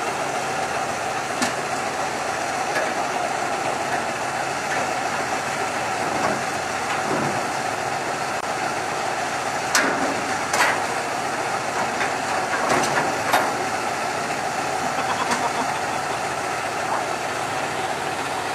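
Semi truck's diesel engine idling steadily, with a few sharp clacks over it, two of them close together about ten seconds in.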